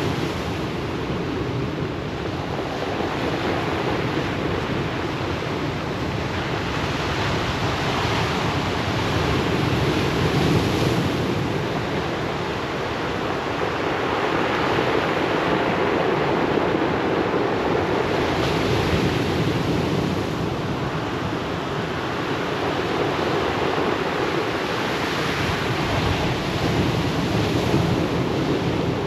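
Ocean surf breaking and washing ashore, a steady rush of water that swells and eases every several seconds as each wave comes in.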